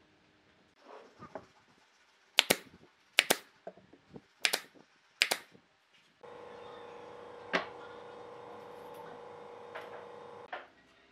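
A few soft knocks, then four sharp double knocks about a second apart as a wooden trim piece is fitted around the base of a wooden post. A steady hum with a held tone then starts suddenly and cuts off near the end.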